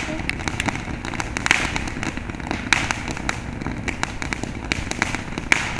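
Ground fountain firework spraying sparks: a steady hiss studded with sharp crackling pops, several a second at irregular intervals.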